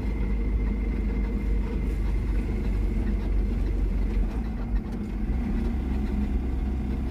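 Small two-cylinder van's engine running with road noise as it drives, heard from inside the cab: a steady low drone, briefly dipping a little after the middle.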